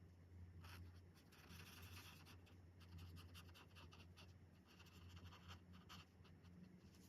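Faint scratching strokes of alcohol marker tips across coloring-book paper, coming in short, irregular strokes, over a steady low hum.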